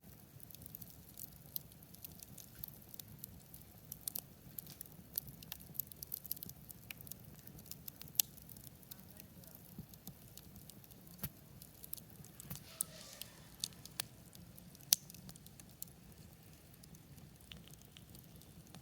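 Campfire crackling: irregular sharp pops and snaps over a faint low rumble, with a brief soft hiss about thirteen seconds in.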